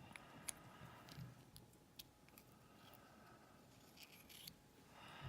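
Near silence with a few faint, scattered metal clicks and ticks as a shim is worked into a small pin-tumbler lock cylinder.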